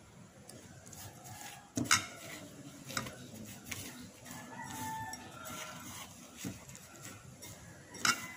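Plates and a glass bowl clinking as they are handled: a sharp knock about two seconds in, a lighter one a second later, and another sharp knock near the end. A rooster crows in the background around the middle.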